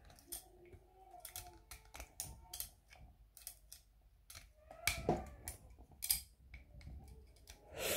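Scattered faint clicks and light taps of small alternator parts being handled, as brushes, springs and the dust cover are worked on, with a faint voice in the background.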